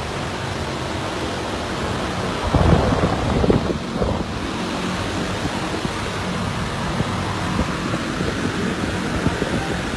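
Nissan R35 GT-R's VR38DETT twin-turbo V6 idling, a steady rumble heard close up, louder and rougher for a couple of seconds from about two and a half seconds in.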